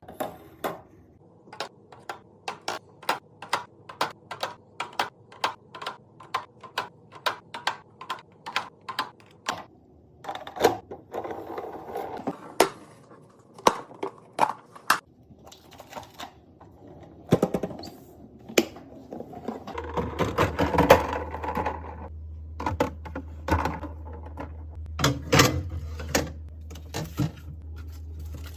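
Restocking sounds: items being set down and arranged one after another, making a run of sharp clicks and taps, about two or three a second at first and then in quicker clusters. A steady low hum comes in about two-thirds of the way through.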